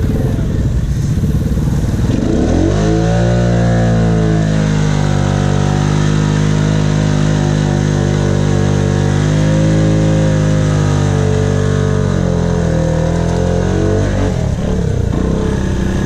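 Honda Rubicon ATV engine revving up about two seconds in and held at high revs while the four-wheeler pushes through a soft mud hole, then easing off near the end.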